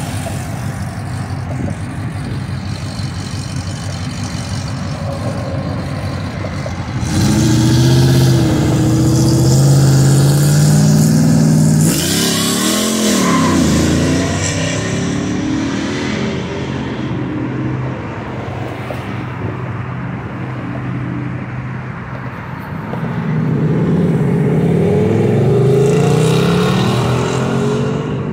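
Car engines driving out of a car meet. An engine gets loud about seven seconds in, one revs up and back down with a rising then falling pitch around halfway, and another engine accelerates loudly near the end.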